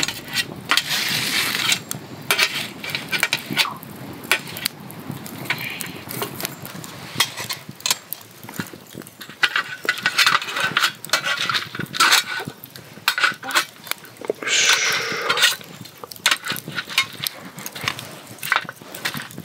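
Long metal tongs clinking and scraping against a thin aluminium tray and the burning sticks as a small wood fire is rearranged, with irregular sharp clicks and crackling from the fire.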